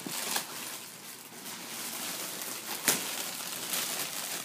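Plastic shrink-wrap on a toy package crinkling as a child's hands grip and pull at it, with a few sharp crackles, the loudest about three seconds in.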